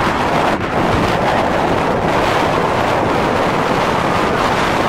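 Steady wind rushing over the microphone through the open roof of a moving car.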